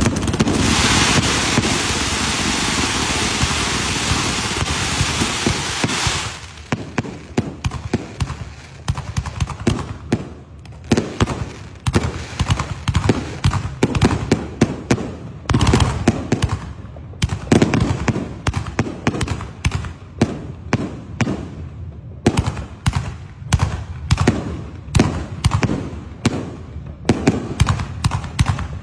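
Firecrackers and fireworks going off. There is a steady hiss for about the first six seconds, then a rapid, irregular run of sharp bangs and crackling pops.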